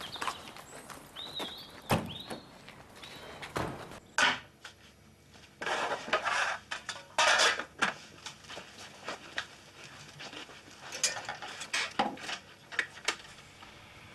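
Footsteps on a pavement for the first few seconds, then kitchen clatter of crockery and cutlery handled at a worktop, in several short, sharp bursts.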